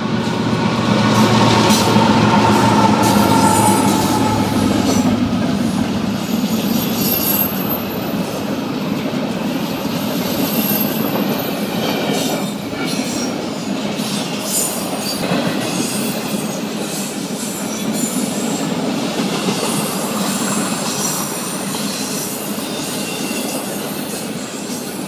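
A pair of GE ES44 freight diesel locomotives passes close by, their V12 engines running loudly for the first few seconds. Then empty well cars roll past in a steady rumble and rattle of wheels on rail, with brief high wheel squeals here and there.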